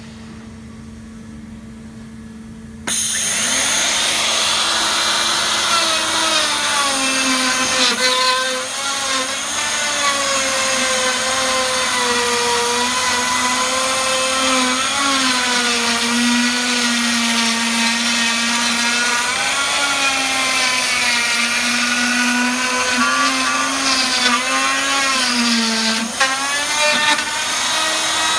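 Edge Tech sink-cutout router starting suddenly about three seconds in and running at high speed, its motor whine dipping and rising in pitch under load as it cuts through OSB countertop substrate.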